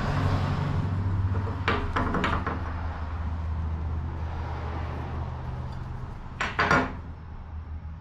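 Metal pipe fittings being handled and set down on a steel workbench: two short clusters of clinks and knocks, about two seconds in and again near the end, the later cluster the loudest, over a steady low hum.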